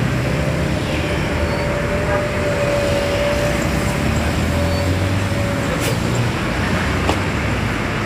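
Large coach bus engine running as the bus pulls away slowly, the rumble swelling about halfway through. A single steady high tone is held over it for about five and a half seconds, then stops.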